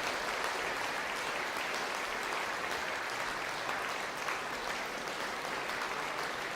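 Audience applauding steadily in a large concert hall.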